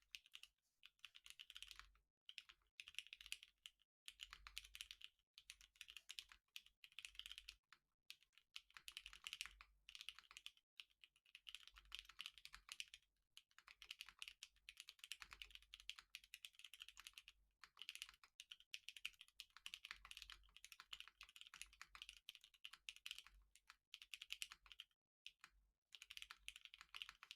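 Typing on a plateless Laminar Designs Leviatán mechanical keyboard with lubed Cherry MX Black Clear-Top linear switches and GMK keycaps. Quick keystroke clacks come in runs of one to three seconds, with short pauses between runs.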